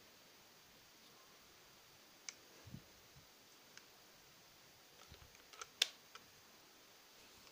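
Plastic clicks and light knocks from a Canon BG-E2N battery grip being handled and its battery door worked: a scattered handful of sharp clicks, the loudest about six seconds in, with a couple of dull bumps.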